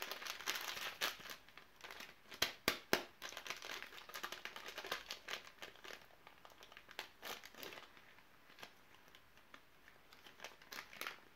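MRE food packet crinkling and crackling as it is handled and torn open by hand. The crackles come irregularly: loudest about two and a half to three seconds in, sparser for a few seconds in the middle, and busier again near the end.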